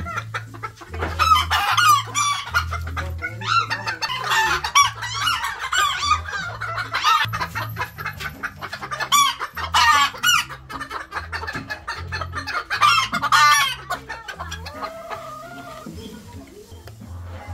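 Several bantam chickens clucking and squawking in a string of short calls, with roosters crowing among them, over background music.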